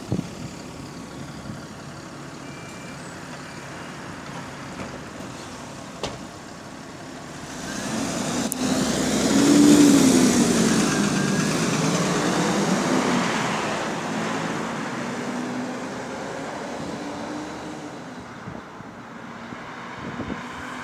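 Bus E266 pulling away from the stop and passing close by: the engine note rises and falls, with loud cooling-fan noise over it. It is loudest about ten seconds in, then fades as the bus moves off.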